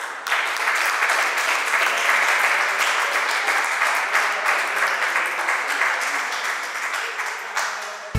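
A small audience applauding after the match's final rally: dense, steady clapping that thins a little near the end.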